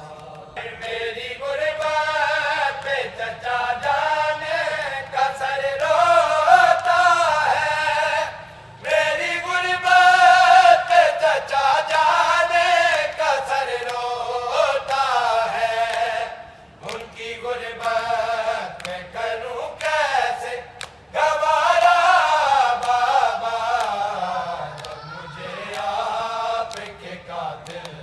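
Male voices chanting an Urdu noha, a mourning lament sung without instruments, in long melodic phrases with short breaths between them.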